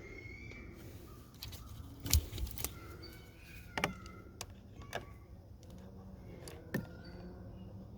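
Scattered light clicks and small rattles of hands handling wiring and small metal parts at a car door jamb, a few sharper knocks among them, over a faint steady hum.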